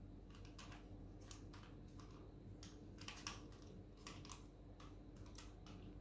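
Faint, irregular small clicks and taps, several a second, as two plastic 3x3 Rubik's cubes are turned over in the hands, over a low steady room hum.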